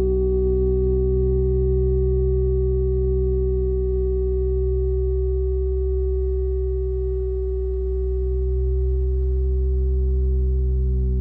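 Electronic drone of steady sine tones: one strong mid-pitched tone held over several deep, steady tones, with fainter higher tones slowly wavering. The mix thins a little about two thirds of the way through, then fills out again.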